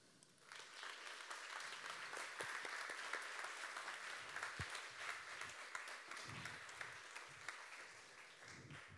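Audience applauding, building up within the first second and tapering off gradually near the end.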